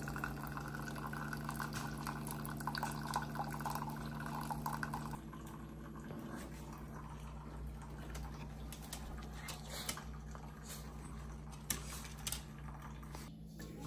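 Keurig single-serve coffee maker brewing, its pump humming steadily while a thin stream of coffee pours into a ceramic mug. The hum changes and the pouring fades about five seconds in.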